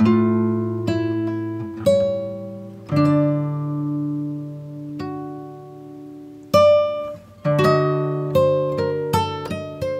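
Background music of a plucked acoustic guitar: single notes and chords that ring and die away, growing quicker over the last few seconds.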